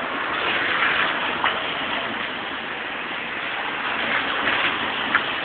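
Steady hiss of street noise, with two short clicks, one about a second and a half in and one near the end.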